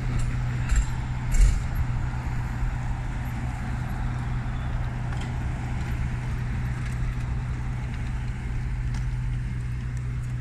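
Street noise dominated by a steady low hum of motor-vehicle traffic, with two short knocks about a second in.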